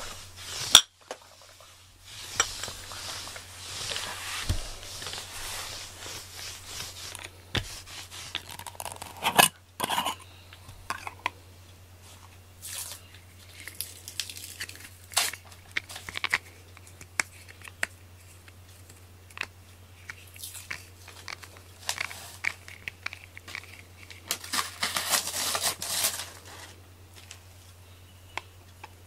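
A cat being brushed with a rubber grooming brush: close rustling, scraping strokes in two longer stretches, with scattered small clicks and taps.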